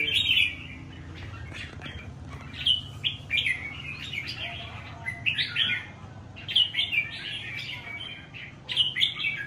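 Caged red-whiskered bulbuls singing in short, bright phrases that come in several bursts, over a faint steady low hum.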